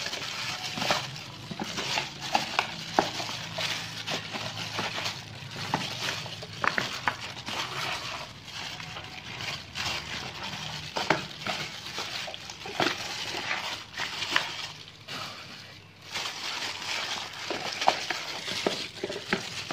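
Plastic glove crinkling and squishing as a hand rubs seasoning into a raw whole chicken in a plastic bowl: irregular rustling and crackling with small clicks and knocks against the bowl.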